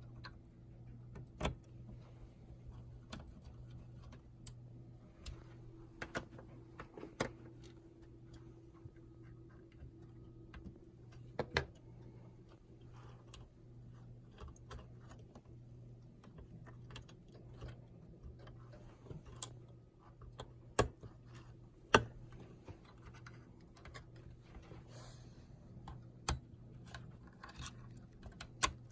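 Irregular sharp clicks and taps of small hardware being handled while a POS terminal's motherboard is replaced, over a steady low hum.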